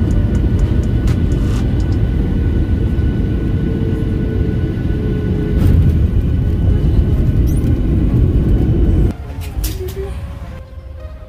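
Steady low rumble of a vehicle in motion with music over it, cutting off suddenly about nine seconds in.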